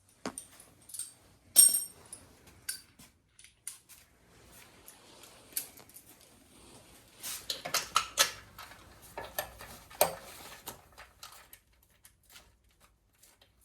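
Scattered metallic clinks and taps of hand tools and bolts being handled while the motorcycle's subframe bolts are taken out. A bright ringing clink comes about one and a half seconds in, and a busier run of clatter from about seven to ten seconds in.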